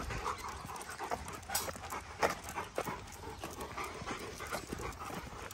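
Rottweiler panting close by, with scattered light clicks and scuffs.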